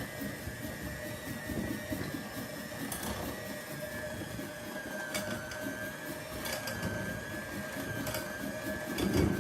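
Electric hand mixer running steadily at medium speed, with a constant motor whine as its beaters churn a carrot cake batter of vegetable oil, brown sugar and spices.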